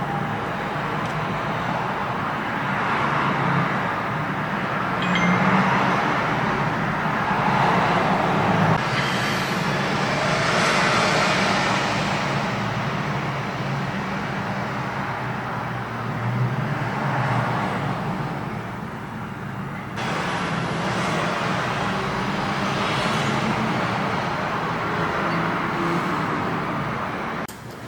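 Steady rushing noise like a fan or blower running, swelling and easing every few seconds. It steps up suddenly about two-thirds of the way through and drops away just before the end.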